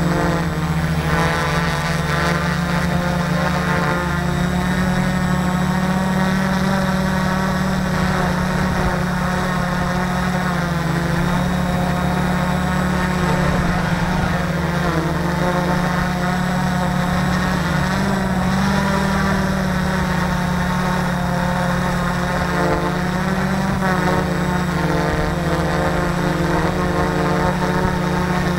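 Electric motors and propellers of a multicopter, heard up close from a camera on its own frame, running steadily as a hum with a whine whose pitch drifts up and down with the throttle.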